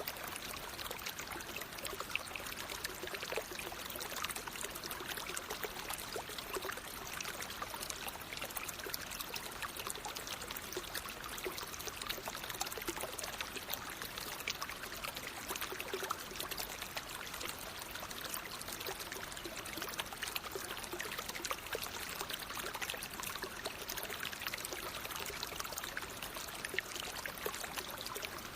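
Water flowing over rocks in a natural watercourse, a steady, unbroken splashing and trickling.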